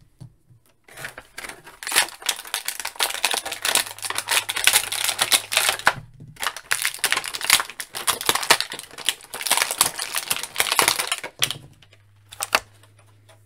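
Clear plastic packaging bag crinkling and crackling as it is handled and opened to take out plastic toy parts. It comes in two long stretches of dense crinkling, with a short break about six seconds in, and eases off near the end.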